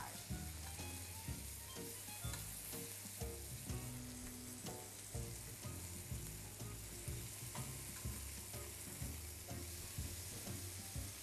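Strips of pancetta sizzling as they fry in a frying pan, with scattered clicks of metal tongs against the pan as the strips are turned.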